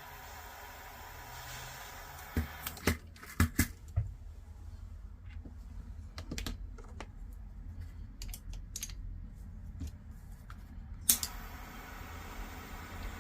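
Light clicks and taps from handling a soldering iron, solder and wires on a workbench: a quick cluster of sharp clicks about two to four seconds in, then scattered ticks and one sharp click near the end, over a faint steady hiss.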